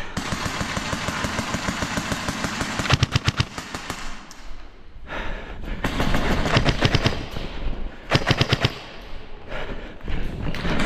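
Airsoft guns firing rapid full-auto bursts: a fast string of clacking shots about three seconds in, then two more bursts later on.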